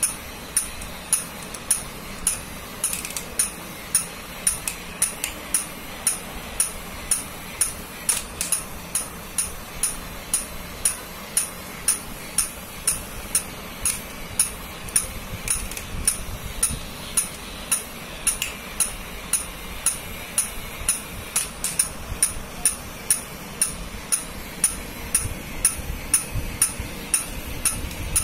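Battery-operated jumping plush puppy toy running, its mechanism clicking about twice a second in an even rhythm over a steady hum as it hops along the floor.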